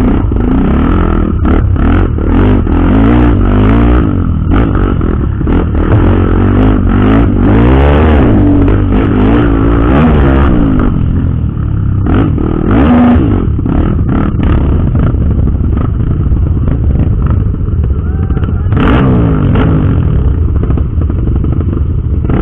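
Off-road motorcycle engine running under load on a trail, its pitch rising and falling again and again as the throttle opens and closes, with frequent knocks and rattles from the rough ground.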